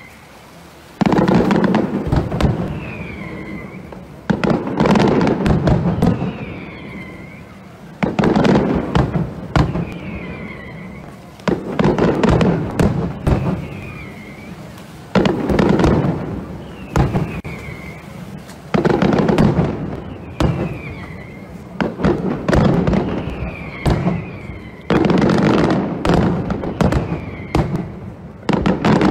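Aerial fireworks display: loud shell bursts about every three to four seconds, each trailing off in crackling, with short falling whistles in between.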